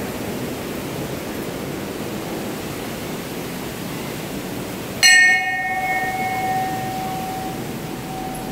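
A hanging brass temple bell, struck once about five seconds in, rings on with a clear tone that slowly fades. A steady rushing hiss runs underneath it.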